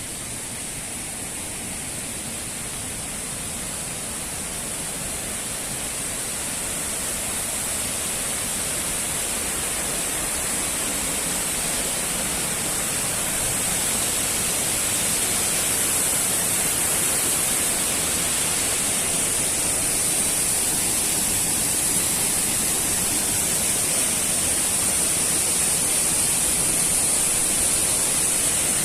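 Waterfall rushing: a steady wash of falling water that grows gradually louder over the first half, then holds.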